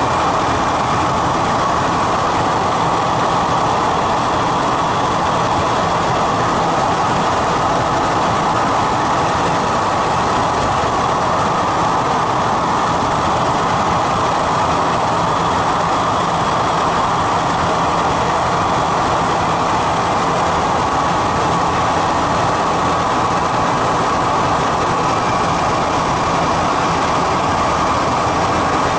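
Steady drone of a light propeller aircraft in cruise, its engine, propeller and rushing air heard inside the cockpit, unchanging throughout.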